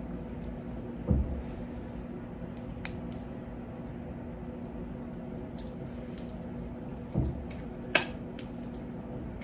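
Quiet handling of a lipstick and its small packaging over a steady low room hum: a few faint clicks, two soft low bumps, and one sharper click about eight seconds in.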